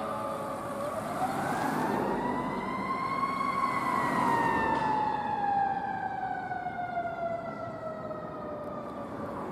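Fire engine's siren wailing as it responds: the pitch climbs for about two and a half seconds, then slowly falls away over the next five or six seconds.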